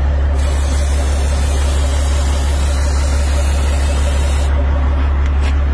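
Aerosol can of spray grease hissing in one continuous spray of about four seconds while greasing a semi truck's fifth-wheel hitch, over the steady hum of the truck's engine idling.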